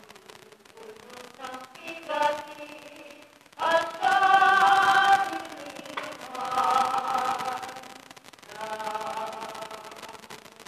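Choir singing a slow hymn in long held phrases with short breaks between them, loudest about four seconds in.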